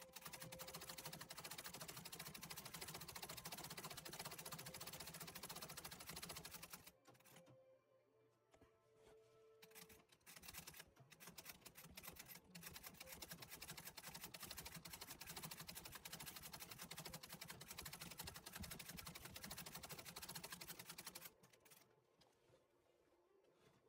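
Antique treadle sewing machine stitching fast, doing free-motion embroidery in a hoop: a rapid run of needle strokes for about seven seconds, a pause of about three seconds, then a longer run that stops near the end.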